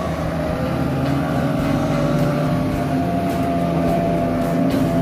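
Outboard motors of wooden lidah speedboats running at high speed as the boats pass, a steady drone whose pitch rises slightly about halfway through.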